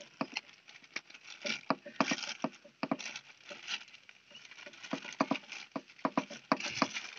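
Clear plastic wrapping around a new filter element crinkling and crackling as it is handled and unwrapped, in a run of irregular sharp crackles.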